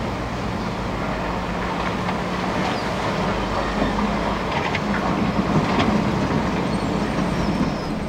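Hydraulic excavator's diesel engine running with a steady hum as it works its arm and bucket, getting a little louder in the middle, over the rush of river water. Scattered clanks and rattles in the middle few seconds.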